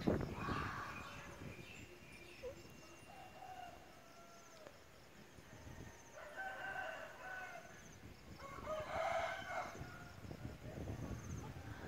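Rooster crowing repeatedly, the clearest crows about six and nine seconds in, each lasting about a second, with fainter calls between.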